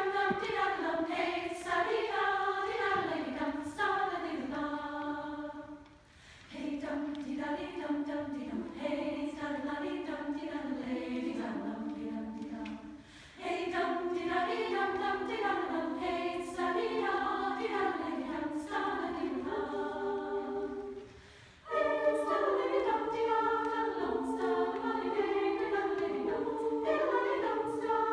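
Women's choir singing a cappella a turlutte, the Acadian and Québécois style of mouth music sung on nonsense syllables, in several moving vocal parts. The singing breaks off briefly between phrases, about six, thirteen and twenty-one seconds in.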